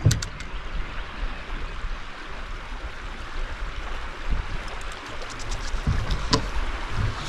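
River water rushing and splashing around a kayak on a high, fast river, with a low rumble underneath and a few light knocks, the loudest about six seconds in.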